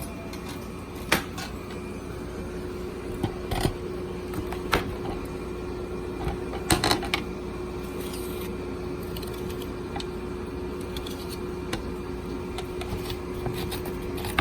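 Scattered clicks and knocks of things being handled in a kitchen, the sharpest cluster about seven seconds in, over a steady low hum.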